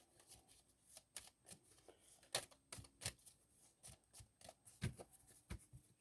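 A deck of tarot cards being shuffled by hand: faint, irregular flicks and snaps of card against card, with a couple of louder ones about two and a half and five seconds in.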